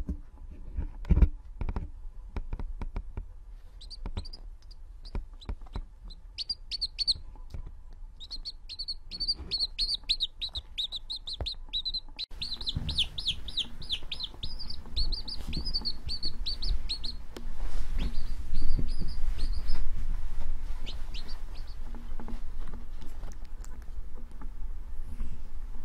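Baby chick peeping: quick runs of short, high cheeps that are busiest from about four to seventeen seconds in, with a few more later. A couple of dull bumps come near the start.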